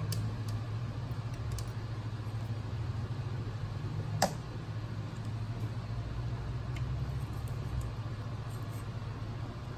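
A steady low background hum, like a fan or motor running, with one sharp click about four seconds in.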